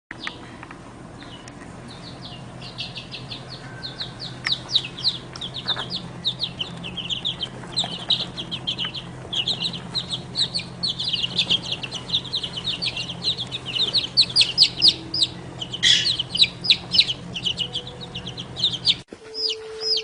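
A brood of baby chicks peeping, many rapid, high, downward-sliding peeps overlapping without a break, over a low steady hum. The sound cuts off abruptly near the end.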